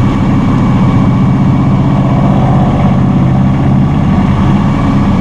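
Massey Ferguson GC1720 subcompact tractor's diesel engine running steadily at idle while the backhoe is operated.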